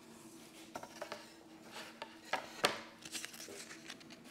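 Light handling noises of craft pieces and tools on a worktable: scattered small clicks, taps and rustles, the sharpest pair about two and a half seconds in, over a faint steady hum.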